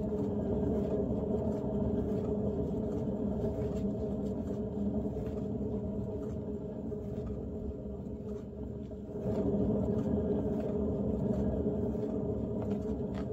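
Electric paint spinner's motor running steadily, turning the canvas: a constant hum that gets louder about nine seconds in.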